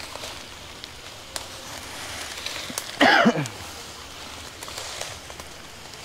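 Footsteps rustling and crunching through dry leaf litter and undergrowth, with a few small twig snaps. About halfway through, a man lets out one short, loud shout that drops in pitch.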